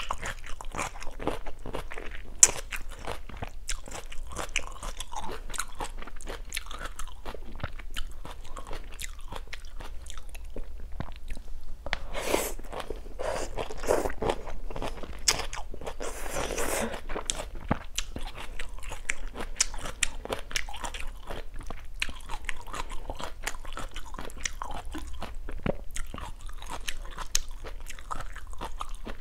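Close-up eating sounds: biting and chewing kimchi and black bean noodles, with many small crunches and wet mouth sounds. There is a louder, longer stretch of noisy eating about halfway through.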